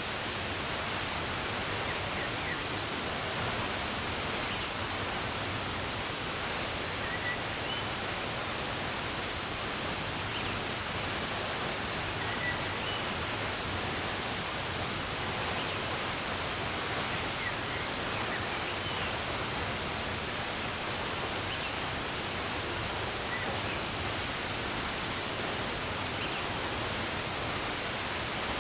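Steady rush of running water, with faint, short bird chirps breaking through every few seconds.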